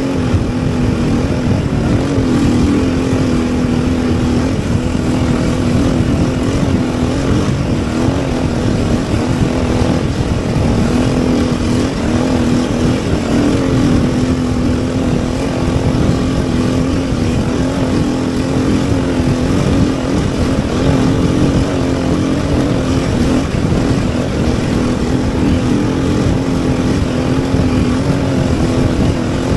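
A vehicle driving at a steady pace. The engine holds a fairly even note that wavers a little, over a constant rushing noise.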